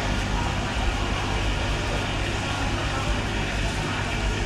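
Steady, fairly loud din of a busy street market, with a constant low traffic hum underneath.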